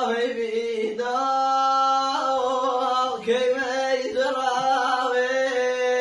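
A single voice singing slow, long-held notes in a chant-like melody, each note held for a second or more before it moves on.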